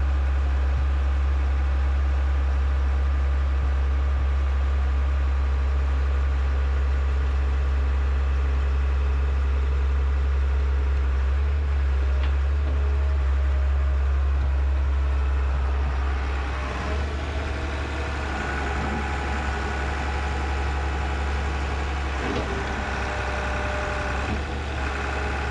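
Excavator engine running steadily with a strong low hum. About two-thirds of the way through the sound shifts: slightly quieter, with higher steady tones added.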